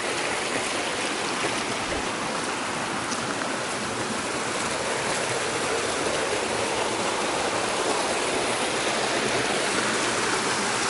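Small mountain stream rushing over rocks in a little cascade: a steady wash of water noise that grows slightly louder toward the end.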